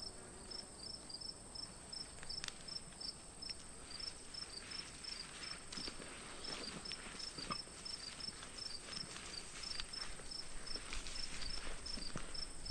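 Night insects, crickets, trilling: a steady high-pitched whine with a repeating chirp a few times a second over it. Scattered clicks and rustles come through, growing louder near the end.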